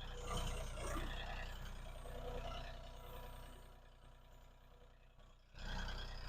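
Mahindra tractor's diesel engine running steadily, getting suddenly louder again near the end.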